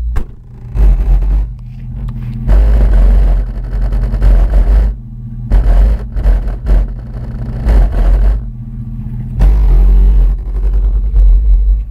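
Heavy subwoofer bass from a pair of Rockford Fosgate T1 12-inch subwoofers on a 1500 W RMS monoblock amplifier, pounding out music loudly. The deep bass comes in strong surges a few seconds long.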